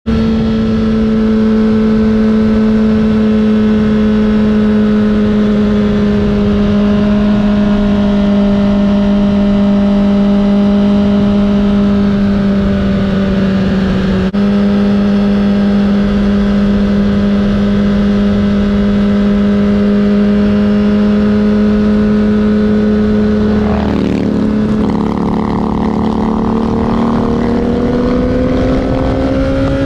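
Honda CBR1000RR's inline-four engine running steadily at cruising revs under the rider. Near the end the pitch wavers briefly, then climbs steadily as the bike speeds up.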